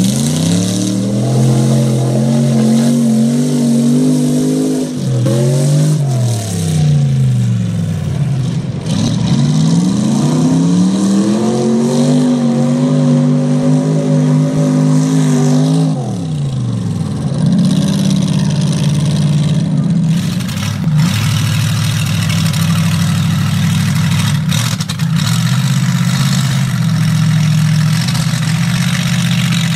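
Chevy mega truck's engine revving hard under load while churning through mud. The revs climb, fall away twice, then hold high for the last dozen seconds.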